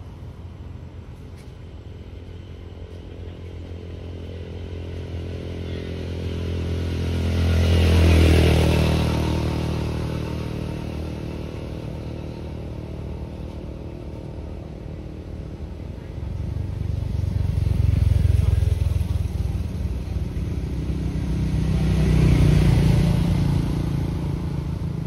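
Motor vehicle engines passing one after another, a low steady hum that swells and fades: one pass peaks about eight seconds in and two more come near the end.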